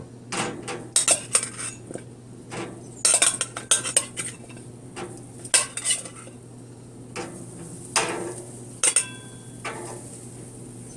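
Irregular metal clinks and clatters as oiled okra pods are put onto a small two-person grill's grate, with one clink about nine seconds in ringing briefly.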